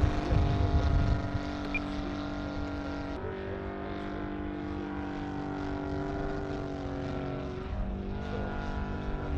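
Saito FG-60R3 three-cylinder four-stroke gas radial engine of a giant-scale RC P-47 Thunderbolt running in flight overhead, its pitch stepping up about three seconds in and dropping back near the end. A low rumble sits under it in the first second.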